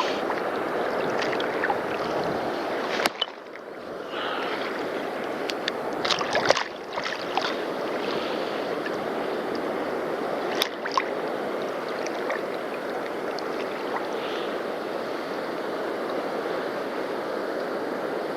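Steady wash of sea water and wind at the shoreline, with a few sharp clicks about three, six and eleven seconds in.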